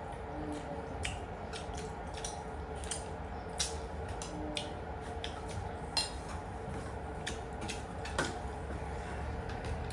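Cooking utensils and dishes clinking: irregular light clicks, a few of them sharper, over a steady low background noise.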